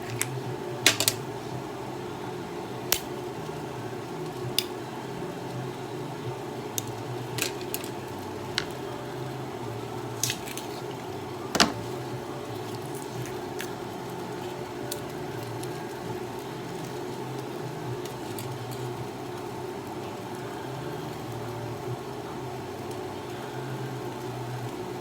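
Cabbage and broth cooking in a hot pot, heard as a steady hum with scattered sharp clicks and pops a second or more apart. The loudest pop comes near the middle.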